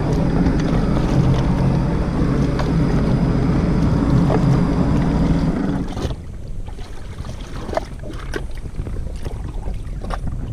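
Sea-Doo jet ski engine idling steadily. About six seconds in it gives way to quieter water lapping and scattered light knocks.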